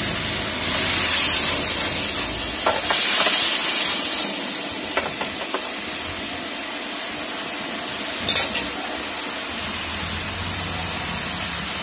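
Beef cubes in sauce sizzling in a frying pan, stirred with a metal spatula that scrapes and taps the pan now and then, with a brief sharper clatter about eight seconds in.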